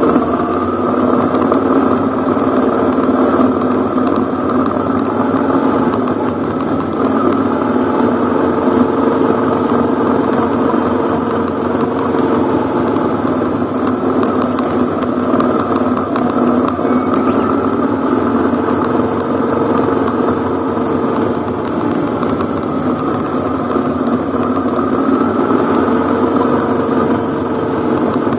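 Ducati Hypermotard's L-twin engine running steadily on a dirt forest road, its pitch rising and falling a little with the throttle, with light rattling and knocking from the bike over the rough gravel surface.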